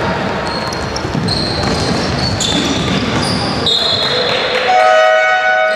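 Indoor basketball game in a gymnasium: a steady din of spectators' voices, with the ball bouncing and players moving on the hardwood. Short high-pitched squeaks or whistle tones cut through now and then, a strong shrill tone comes about two-thirds through, and a held horn-like tone sounds near the end.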